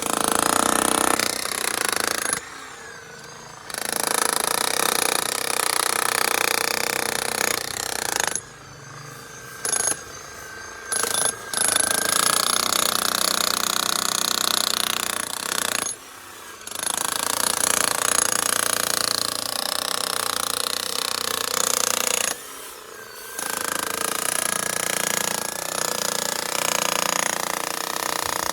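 Makita HM1213C SDS-Max demolition hammer running and hammering in long bursts, with several short pauses between them.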